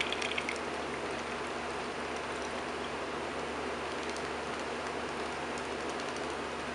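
Steady hissing background noise. A duck's bill dabbles and splashes in a bowl of water right at the start, then it pecks at food in a plastic dish with a few faint clicks.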